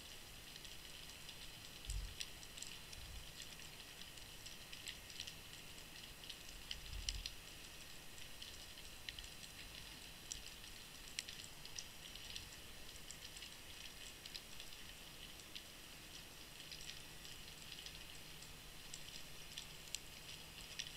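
Faint underwater crackling and scattered ticks, heard through a camera submerged on the seabed, with a few dull low thumps about two, three and seven seconds in.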